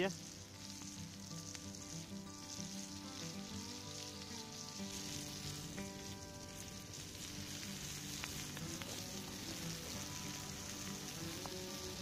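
Eggs frying in a pan held over a burning split-log Swedish fire log: a steady sizzle, with an occasional sharp pop.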